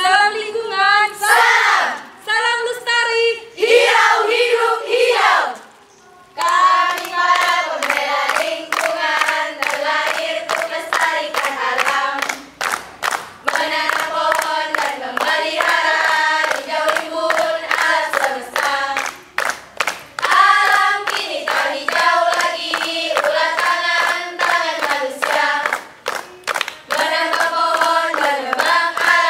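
A group of girls singing together in unison. After a short pause about six seconds in, steady rhythmic hand claps come in under the singing.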